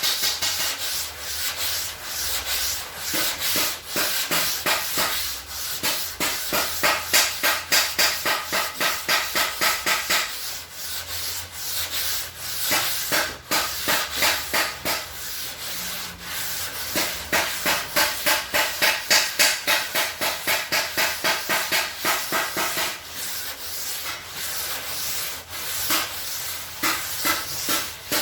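Sandpaper being rubbed by hand back and forth over a car's engine hood, in rapid even strokes, to sand the panel flat. The strokes ease off twice before picking up again.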